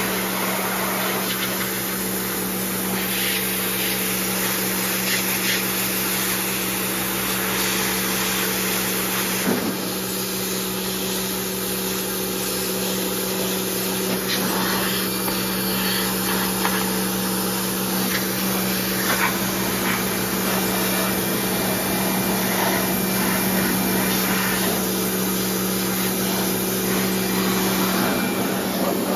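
Pressure washer running steadily with a constant hum, its water jet spraying against a lawn mower's deck and engine.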